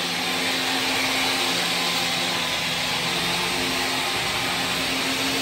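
Electric terrazzo floor-grinding machine running steadily: an even motor hum with a constant hiss.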